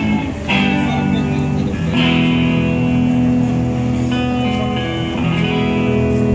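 A band's soundcheck through the stage PA: a guitar strums held chords, changing every second or two.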